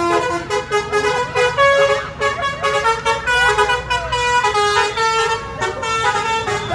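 Several basuri telolet horns, the multi-tone musical air horns fitted to buses and trucks, sounding together: overlapping melodic toots that step between pitches, over a low rumble.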